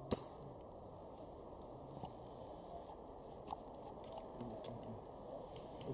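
A single sharp snap of a scoped airsoft sniper rifle firing, followed by a few faint ticks.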